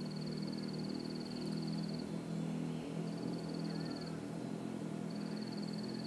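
Rainforest ambience: a high, fast pulsing trill that stops and starts three times, over a steady low hum.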